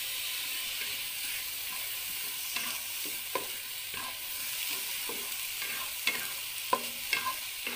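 Sliced shallots, garlic and tomato wedges sizzling in a hot nonstick pan with no oil, a steady high hiss. A spatula scrapes and stirs them in short, uneven strokes from a couple of seconds in.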